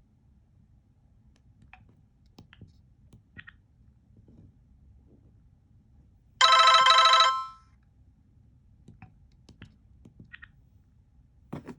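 Motorola RAZR V3 playing about a second of a polyphonic ringtone, a rapid run of notes that stops abruptly, between faint scattered clicks of its keypad. A soft knock near the end.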